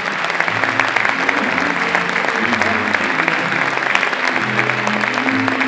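Audience applauding steadily over background music.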